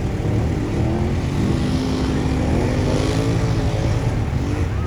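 Off-road vehicle engine running under load in deep mud, its pitch wavering up and down through the middle as it revs.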